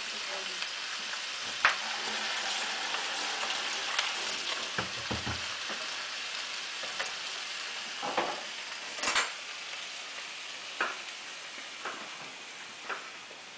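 Sausages frying in a pan over a low biogas flame: a steady sizzle with scattered pops and crackles, growing fainter over the last few seconds.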